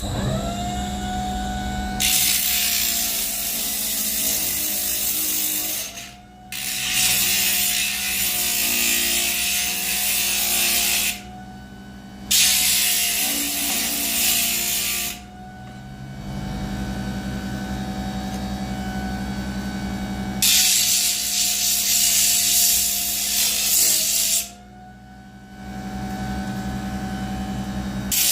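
Cordless die grinder (Milwaukee M12) running with a steady whine, carving black walnut. The burr bites the wood in four long grinding passes of a few seconds each, with short lulls between them; the whine dips briefly twice.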